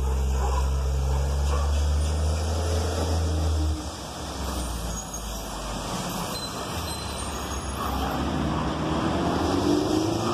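Crane Carrier (CCC) garbage truck's engine running as the truck pulls past and away, with a strong low engine hum that drops off suddenly about four seconds in, leaving the fading truck and road noise.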